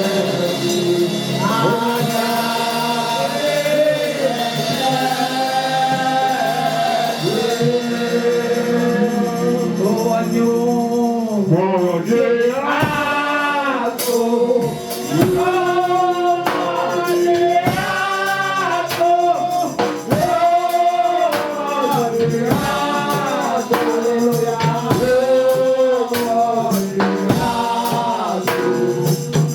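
Gospel worship song sung by a worship leader and a congregation over instrumental backing, with percussion keeping a steady beat from about the middle on.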